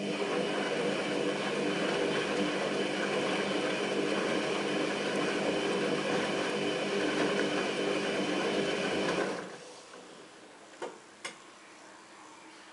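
Front-loading washing machine tumbling a load of clothes in water: steady motor hum with water sloshing in the turning drum, which stops about nine seconds in as the drum pauses. Two short clicks follow.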